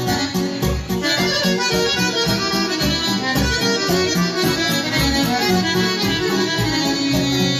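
Button accordion playing a traditional dance tune: quick runs of short melody notes over a recurring low bass note.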